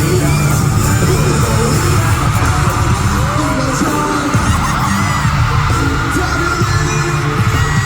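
Loud amplified K-pop concert music, recorded from among the audience, with singing and the crowd yelling and cheering over it.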